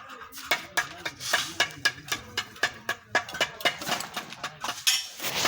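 Irregular sharp metal clinks and knocks, several each second, from hand tools and engine parts being handled during a truck engine repair.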